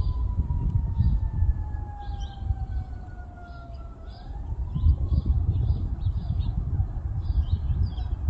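A siren wailing, its pitch sliding slowly down and then turning upward again about four seconds in, over small birds chirping repeatedly and a gusty low rumble.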